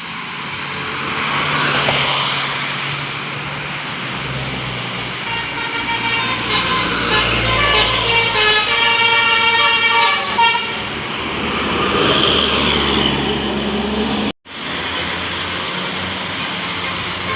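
Passing bus with engine and road noise, sounding a Basuri telolet horn: a multi-trumpet musical horn playing a stepped, several-note tune, clearest from about five to ten seconds in.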